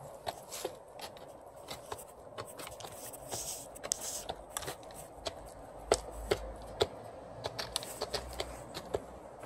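White turkeys pecking feed from a red plastic poultry feeder: irregular sharp taps and clicks of beaks striking the plastic pan and the feed, a few louder pecks about six and seven seconds in.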